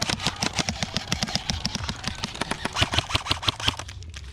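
Airsoft guns firing on full auto, a fast irregular string of sharp snapping shots, roughly eight to ten a second, that thins out near the end.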